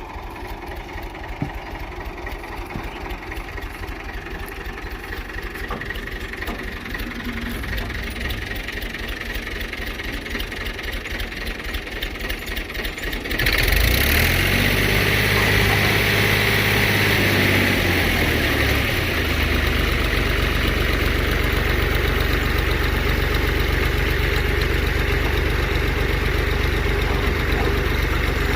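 Tractor engine and wheat thresher running. The sound builds slowly, then turns abruptly louder about halfway through. The engine's pitch wavers for a few seconds before settling into a steady, louder run.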